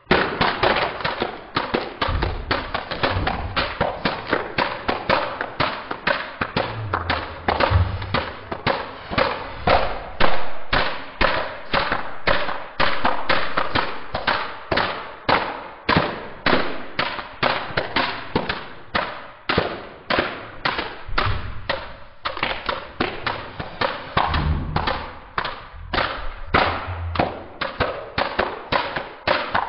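Plastic toy hand clappers shaken hard and fast, a steady run of sharp plastic clacks, about three a second, that goes on without a break. A few low thumps come in now and then.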